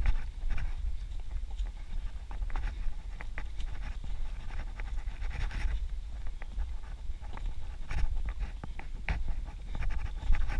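A runner's footfalls on a dirt and rocky trail, coming unevenly, with heavy breathing, over a steady low rumble from wind and movement on a body-worn camera's microphone.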